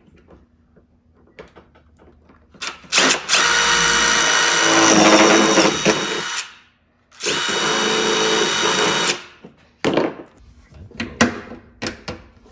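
Cordless drill with a step drill bit running steadily as it bores through a rubber drain grommet, in two runs of about three and two seconds. A few handling clicks and knocks follow.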